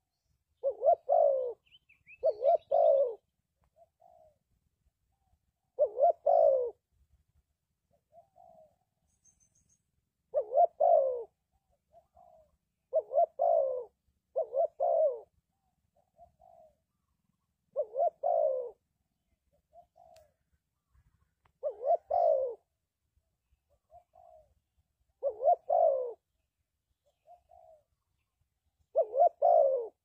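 Spotted dove cooing: a loud, low coo phrase repeated about every three to four seconds, each followed by a faint short note.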